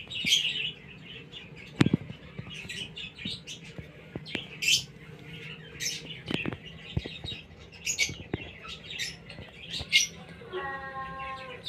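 Short, high-pitched bird chirps repeated again and again, with two sharp knocks. Near the end there is a longer call of several tones that falls slightly in pitch.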